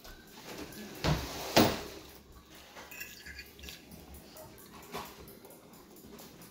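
Close-miked eating sounds from a plate of chicken, rice and ridged potato chips: chewing with two sharp crunching clicks about a second in, then quieter chewing and a fork touching the plate.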